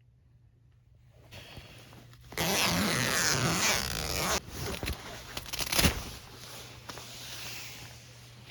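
Tent door zipper being unzipped in one long, loud rasping pull, followed by a few clicks and knocks of handling and fabric rustling that fade away.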